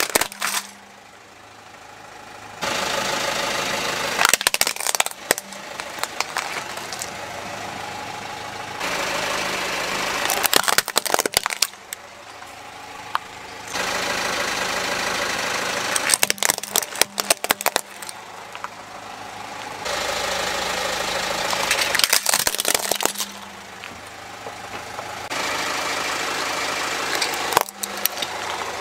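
A car engine idling while a tyre rolls slowly over plastic toys and crushes them. About five bursts of cracking and snapping plastic come roughly every six seconds.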